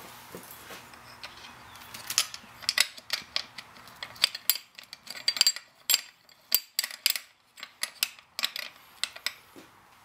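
Wrenches and metal hardware clinking against the metal frame of a Stryker cot as the O2 holder bracket is fitted and its nuts tightened: an irregular string of sharp metallic clicks and taps. The clicks come thickest from about two seconds in until near the end.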